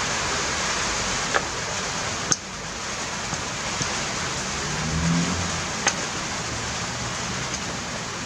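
Steady hiss of rain from a storm, with a few faint small clicks.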